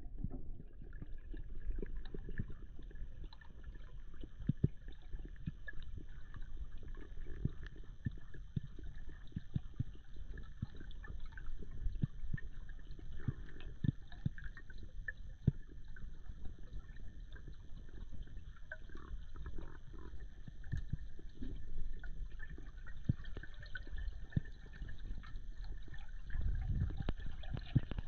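Underwater ambience heard through a submerged camera in a freshwater lake: a muffled low rumble with frequent faint clicks and crackles throughout, and a few faint steady high tones.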